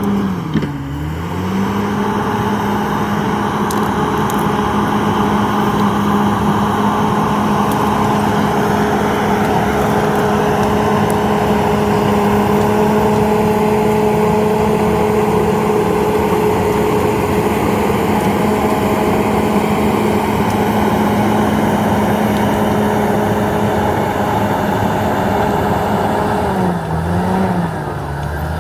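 Komatsu D68ESS bulldozer's diesel engine running steadily at high revs. Its pitch sags briefly about a second in and again near the end, then recovers, as the engine pulls down under the load of pushing brush.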